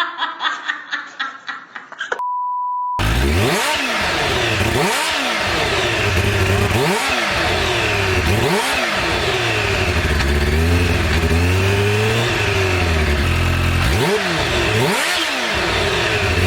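Kawasaki Ninja H2's supercharged inline-four engine being revved in short throttle blips, its pitch rising and falling every one to two seconds, with a longer held rev in the middle. It starts about three seconds in, after a brief pulsing sound and a short steady beep.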